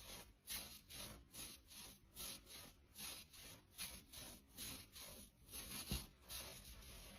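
Faint, rhythmic rubbing of nylon stockings or tights, a soft swishing rasp repeated about twice a second.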